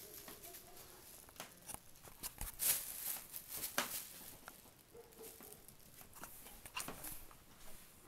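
Thin plastic shopping bag crinkling and rustling in quick, irregular crackles as a kitten bats at and burrows into it, loudest about three seconds in, then lighter scrabbling of small paws on a wooden floor.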